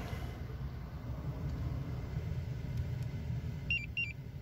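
Car engine idling, a steady low hum heard from inside the cabin. Near the end a Magicar two-way car alarm pager beeps twice, each beep a short high note stepping down to a slightly lower one.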